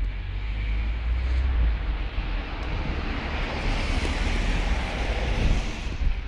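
Outdoor background noise: a low rumble of wind on the microphone, and a broad hiss that swells from about two seconds in and fades near the end.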